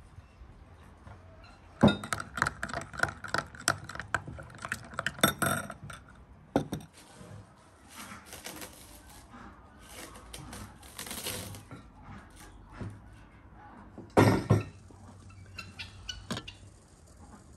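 A teaspoon clinking against a small cut-glass tumbler as yeast is stirred into water: a fast run of ringing clinks lasting a few seconds. Later comes softer handling noise, then a couple of louder knocks near the end.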